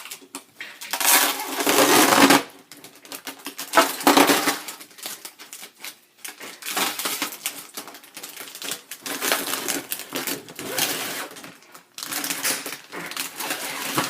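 Tape being peeled off a screen-printing screen: several crackling rips of a second or two each, with short pauses between pulls.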